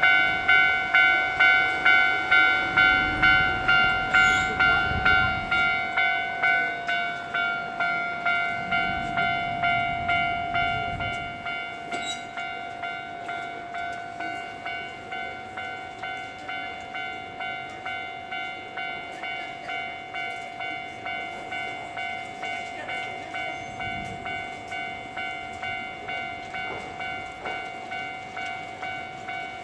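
Japanese railway level-crossing alarm ringing its rapid repeating electronic ding, about one and a half strikes a second, louder for the first eleven seconds or so and then quieter. The rumble of a Keio Inokashira Line train passing comes through under it in the first half.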